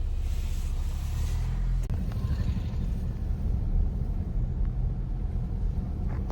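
A car on the move: a steady low rumble of engine and road noise, with a brief break about two seconds in.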